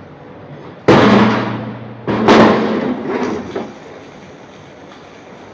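Two heavy metal clangs about a second and a half apart, each ringing on and dying away over about a second.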